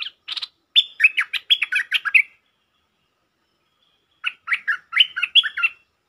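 A bulbul singing two bursts of quick, choppy chattering notes: one in the first two seconds, another starting about four seconds in.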